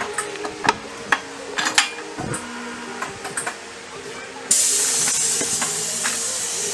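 Light metallic clicks and knocks of hand work on scooter parts, then, about two-thirds of the way in, a sudden steady hiss of a pressurized spray that runs for about two seconds. Background music plays throughout.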